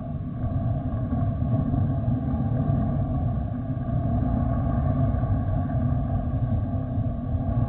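Steady low rumble of jet airliner engines as a twin-engine widebody rolls along the runway, with a few faint steady tones above it.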